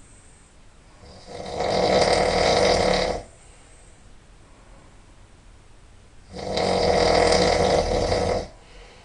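A person snoring loudly: two long, rattling snores about five seconds apart, each lasting about two seconds.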